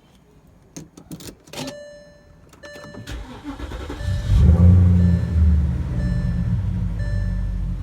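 The Porsche Cayenne S's 4.5-litre V8 is started about three seconds in, flares up loudly for a moment, then settles to a steady idle: the first start after the oil change. A few clicks come before it, and a short electronic chime repeats over the running engine.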